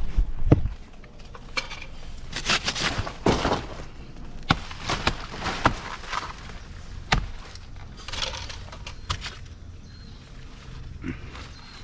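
Irregular rustling, cracks and knocks from a banana plant being handled: the leaves and the bent pseudostem rustling and snapping.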